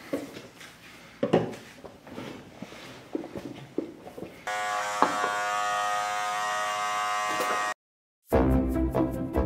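Light rustles and clicks from a barber cape being draped and fastened, then electric hair clippers switched on and running with a steady buzz for about three seconds. The buzz cuts off abruptly.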